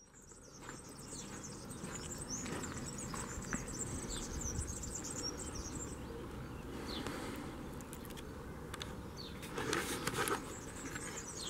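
Small birds chirping and twittering over a steady outdoor background hiss, with a brief louder rustle about ten seconds in.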